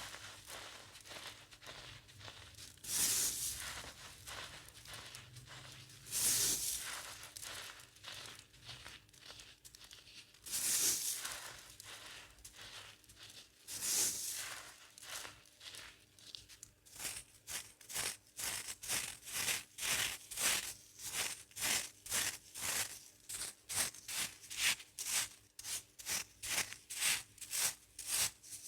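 Pebble-sized chunks of baked baking soda crunching as they are crushed. There are a few single loud crunches a few seconds apart, then from about two-thirds of the way in, quick repeated crunches at about two a second.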